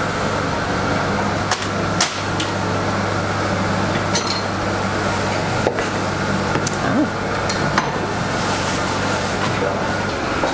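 Hand-pulled noodle dough being worked and cut on a wooden kitchen worktop: a few sharp knocks over a steady background hum.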